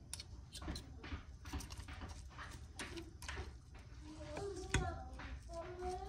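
Metal forks clicking and scraping against a cooking pot while shredding cooked chicken, a quick, irregular run of clicks. Faint voices come in over it in the second half.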